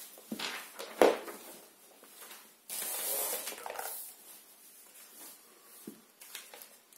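Handling noise from someone moving things about on a wooden floor: a sharp knock about a second in, a rustle lasting about a second a little later, and a few soft knocks near the end.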